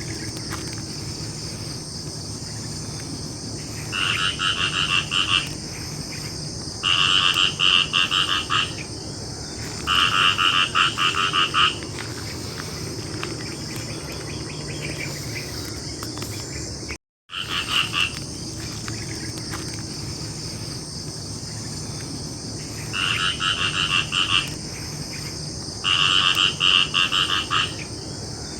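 Frog calling during the breeding season: a rapid pulsed croak about a second and a half long, given three times a few seconds apart, then, after a brief dropout, three more. Under it runs a steady high insect trill.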